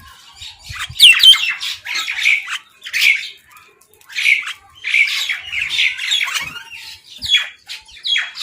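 Birds squawking harshly, one call after another with short gaps, the calls sweeping in pitch.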